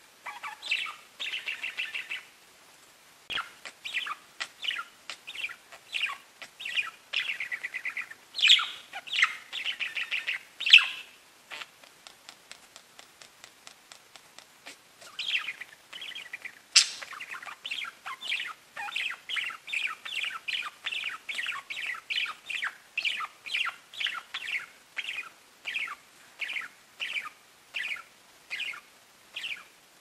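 Pet budgerigars chattering and warbling: a fast, continuous run of short chirps, quieter for a few seconds near the middle. A single sharp click sounds about three seconds in.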